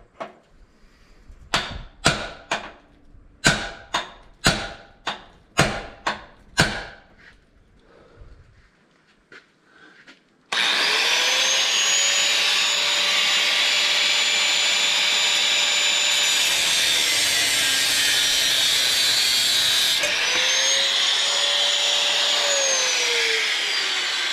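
About ten sharp knocks, roughly two a second, as a tool strikes the old exhaust pipe under the car. Then an electric power tool starts up suddenly and runs steadily with a high whine for several seconds, winds down, and runs again briefly before slowing, cutting through the old mild-steel exhaust.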